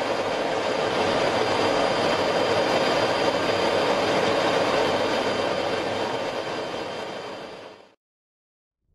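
Steady roar of jet aircraft in flight, engines and rushing air together, with a faint high whine on top; it fades out about eight seconds in.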